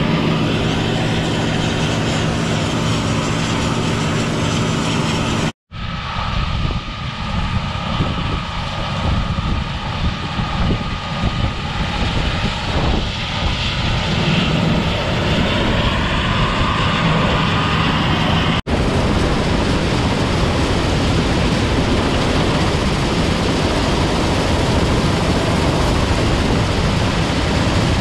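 Steady engine and machine noise of running farm equipment, in three stretches broken by two sudden cuts, about a sixth of the way in and about two-thirds of the way in.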